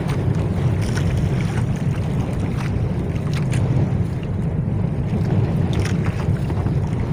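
Steady low drone of a small outrigger fishing boat under way at sea, mixed with wind buffeting the microphone.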